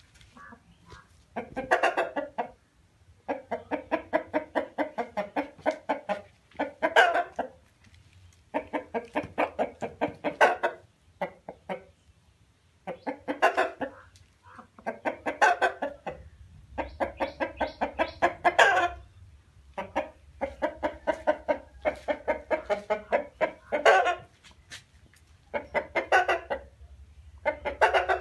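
Chickens clucking in repeated bouts of rapid clucks, about five a second. Each bout lasts one to three seconds, with short pauses between.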